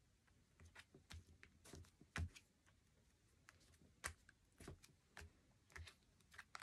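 Faint, scattered small clicks and taps, about a dozen at irregular intervals, from adhesive-backed craft pearls being picked off their backing sheet and pressed onto a paper card.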